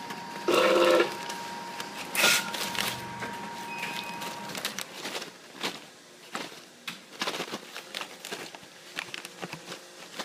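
Sealed plastic snack pouches crinkling and crackling as they are handled, with many short clicks. A short, loud buzzing tone sounds about half a second in, and a faint steady whine stops about four and a half seconds in.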